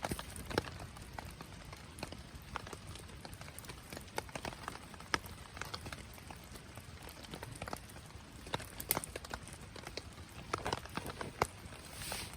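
Wood fire crackling, with irregular sharp pops several times a second and a short hiss near the end.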